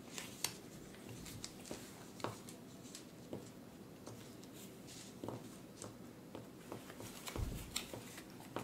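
Quiet handling of board-game pieces: playing cards laid down on a cloth playmat and small cubes set on a board, making scattered light taps and clicks. A dull thump comes about seven and a half seconds in.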